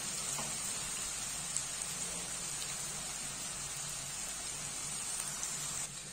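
Chopped onions frying in hot mustard oil in a kadhai: a steady crackling sizzle that gets a little quieter near the end.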